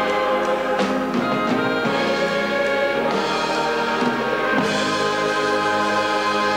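Orchestra with brass playing, moving to a new chord a little after four and a half seconds in.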